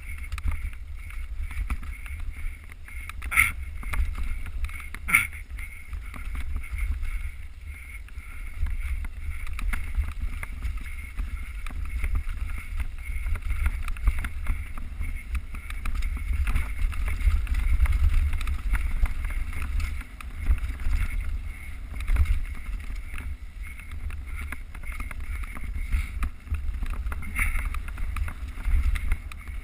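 Mountain bike riding off-road, heard through a GoPro: a steady low rumble of wind and tyres on the trail, with two sharp knocks about three and a half and five seconds in.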